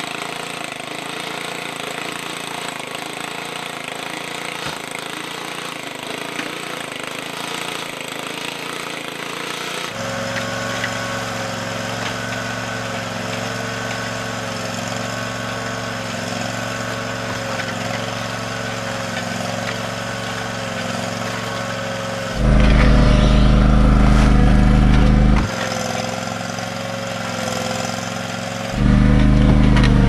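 Small engine of a tracked mini skid steer running steadily, driving a hydraulic concrete mixer attachment. Twice near the end, a much louder low rumble of about three seconds each rises over it.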